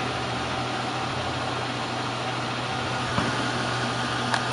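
Engine and road noise of a 2003 Ford Transit Connect van, heard inside the cab as a steady low hum, with a couple of small clicks near the end.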